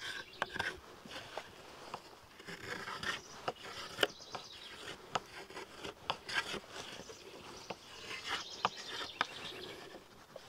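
Knife blade shaving a thin strip of wood clamped in a shaving horse: repeated short scraping strokes with sharp clicks between them.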